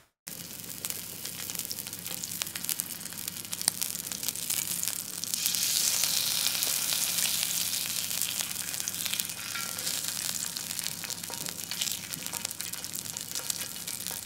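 Meat frying: a steady sizzle full of small pops, swelling louder about five seconds in and easing off a few seconds later.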